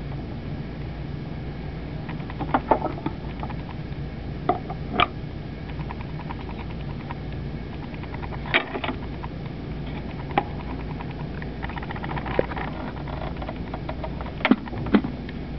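A few sharp plastic clicks and knocks as a Sanyo Phonosphere record player is handled: a 45 rpm record set onto the platter and a front-panel slide control pushed, the last two clicks close together near the end. Under them runs a steady low hum and hiss.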